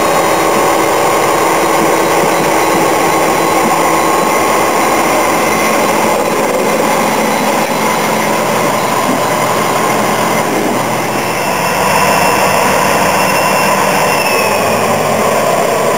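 Diesel locomotive running close by as it hauls a train of carriages, a steady engine drone, with a faint high whine for a few seconds past the middle.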